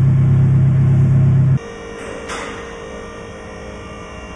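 A loud, steady low drone cuts off abruptly about a second and a half in. A quieter steady electric hum with a couple of clicks follows, fitting a two-post car lift's hydraulic pump motor working with a car on it.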